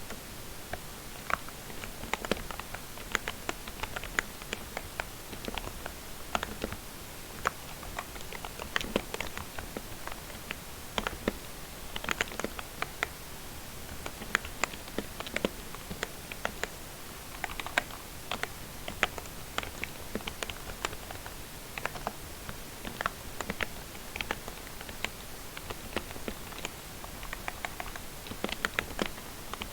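Typing on a lubricated membrane keyboard: quick, uneven runs of soft key presses, several a second, with short pauses between words.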